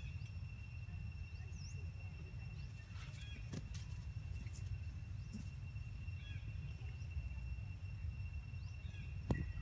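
Outdoor ambience: a steady low rumble under a thin, steady high-pitched tone, with scattered faint bird chirps. A few sharp knocks cut through, the loudest near the end.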